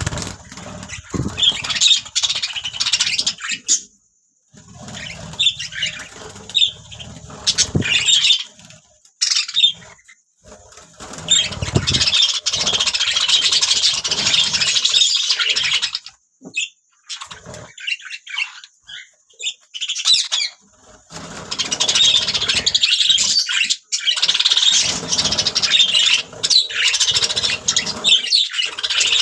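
Budgerigars chirping and warbling, a busy chatter of rapid squeaky notes that comes in long stretches with brief lulls between them.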